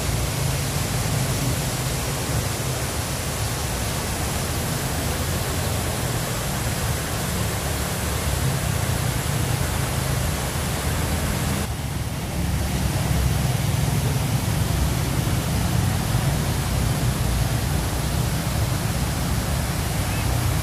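Water spilling down a river weir's concrete spillway at low dry-season flow: a steady rushing noise with a deep rumble underneath. It dips briefly just before the middle, then runs a little louder.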